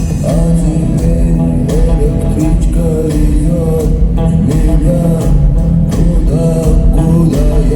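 Live rock band playing loud: a male voice sings a melody over electric guitars, bass and a steady drum beat.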